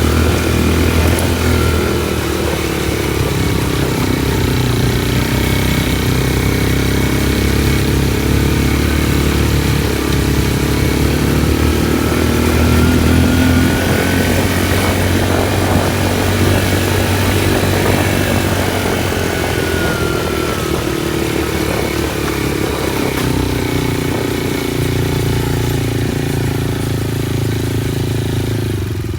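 Motorcycle engine running while being ridden, its pitch rising and falling gently with the throttle.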